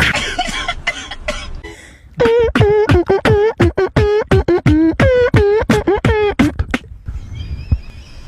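Exaggerated mouth sucking and slurping sound, the funny meme sound of someone sucking ice cream: a wet slurp, then a quick run of about a dozen short, squeaky sucking pops, roughly three a second, that stops about a second before the end.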